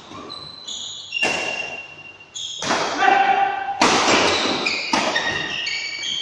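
Badminton doubles rally: rackets smacking the shuttlecock four times, a little over a second apart, each hit ringing briefly in the hall. Between the hits come short high squeaks, typical of court shoes on the floor.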